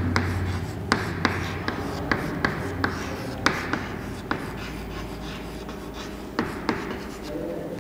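Chalk writing on a blackboard: an irregular run of sharp taps and short scratchy strokes as letters are chalked.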